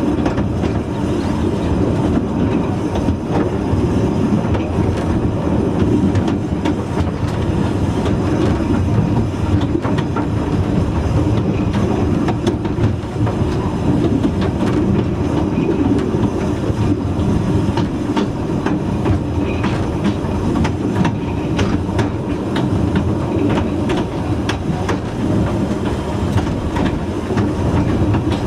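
Narrow-gauge railway coach running along the track: a steady rumble with irregular clicks and knocks from the wheels on the rails.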